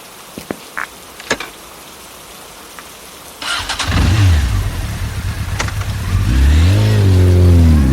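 A soft hiss with a few clicks, then about three and a half seconds in a motor vehicle engine starts and runs. It revs up and down, rising and falling in pitch, louder near the end.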